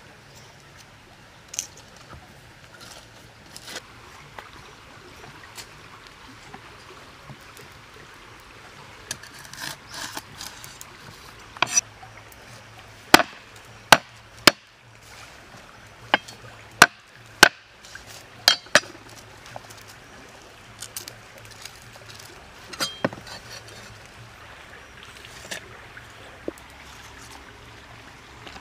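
Cleaver chopping on a wooden chopping board: a series of sharp, irregular knocks, most of them bunched together about halfway through, with lighter taps scattered before and after.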